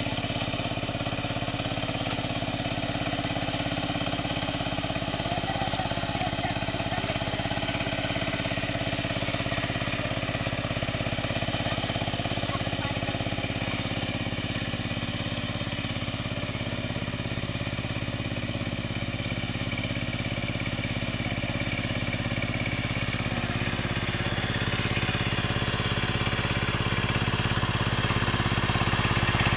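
Kamco KMB200 power tiller's single-cylinder diesel engine running steadily as it tills a flooded paddy field, growing louder near the end as it comes closer.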